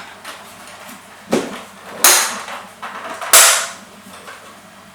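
Three sharp snapping knocks as a part is pressed into place in a VCR case, each trailing off briefly.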